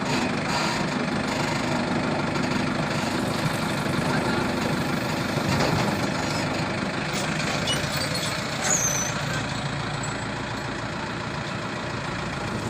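Heavy diesel machinery running steadily, the engines of a backhoe loader or tractors at work, with a busy mix of background noise.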